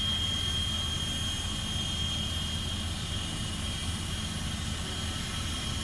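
Steam locomotive No. 89, a 2-6-0, standing at the water tower while its tender is filled: a steady low rumble with a thin, steady high whine over it.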